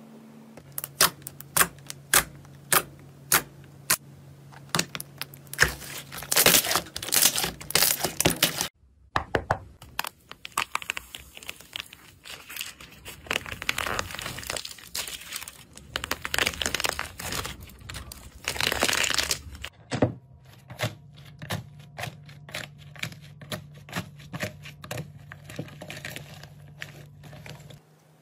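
Hand-played slime: a string of sharp clicks and pops as pink slime is stretched and pressed. About nine seconds in there is a dense crackling as the hard, cracked crust on a ball of blue slime is broken apart by hand. From about twenty seconds come sparser, softer clicks from green slime, over a faint low hum.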